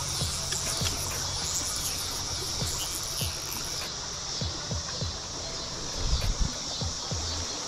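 Steady high-pitched chorus of insects along the riverbank; a higher layer of it drops out about four seconds in. A few low bumps come near the end.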